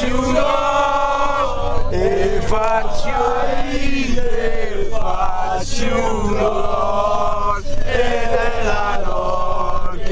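A group of male football ultras chanting a terrace song together in unison, in phrases of a second or two, inside a packed coach.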